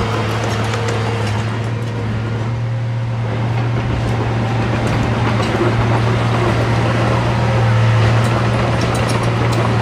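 Diesel engine of heavy earthmoving equipment running steadily at one constant pitch, with scattered light clicks over it.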